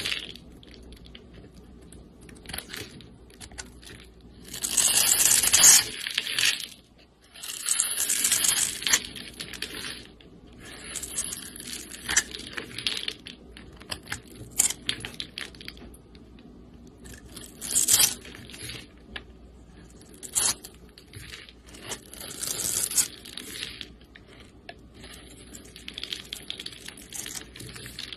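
Dry bar soap being shaved and cut with a snap-off utility knife blade, flakes and cubes breaking away: a series of scraping strokes, some short and a few lasting over a second.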